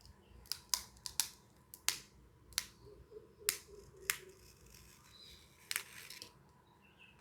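Irregular sharp plastic clicks and snaps, about nine of them, as the protective film is peeled off the Razer Basilisk gaming mouse's thumb rest.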